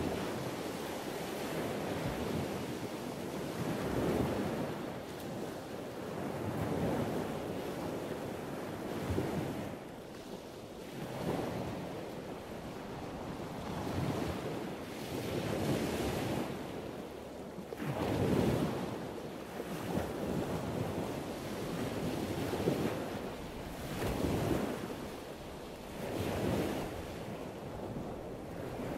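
Underwater scuba breathing heard through a camera housing: a steady rush of regulator breaths and exhaled bubbles swelling and fading about every two seconds.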